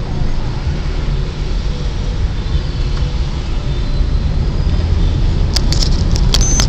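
Car driving, heard from inside the cabin: a steady low engine and road rumble. Near the end come a few sharp clicks and a brief high beep.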